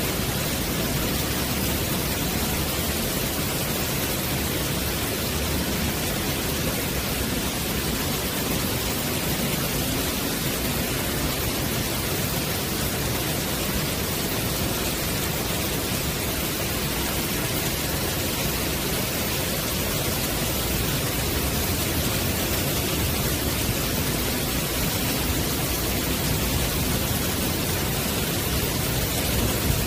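Heavy rain pouring down onto wooden decking and trees, a steady, even hiss that holds at the same strength throughout.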